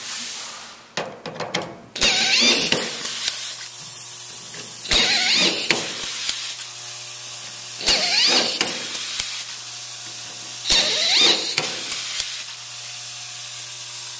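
Pneumatic pistol-grip screwdriver fed by an automatic screw feeder: a steady hiss of compressed air, broken four times, about every three seconds, by a short whirring burst of the air motor driving a screw. The last three bursts each start with a sharp click.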